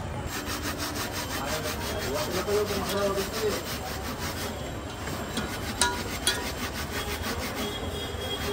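Metal spatula scraping and stirring sliced onions against the inside of an aluminium pot, with two sharp knocks a little after halfway.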